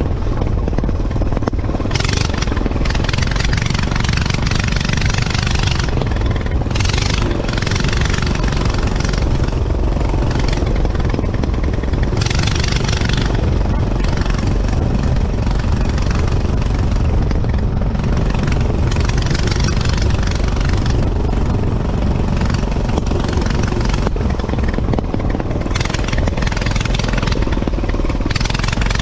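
Off-road go-kart's small engine running steadily while it drives along a dirt trail, with surges of hissing wind noise every few seconds.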